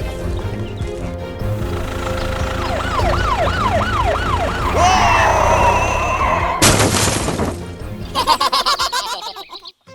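Background music with a police siren sound effect wailing up and down about five times in quick succession around the middle. About seven seconds in, a short, loud noisy burst follows.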